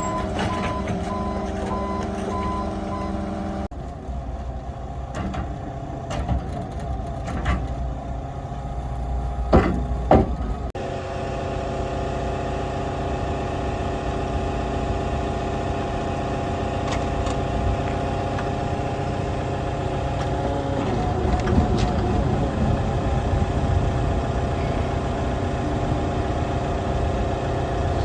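The engine of a Weller P385B asphalt paver running steadily. For the first three seconds a beeping alarm sounds over it, and two loud sharp sounds come about ten seconds in.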